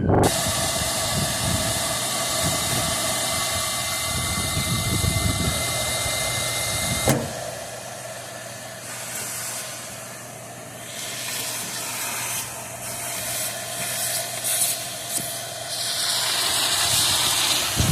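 Steady vehicle engine noise with a faint held tone, cutting off sharply about seven seconds in to a quieter, fluctuating hiss that grows louder near the end.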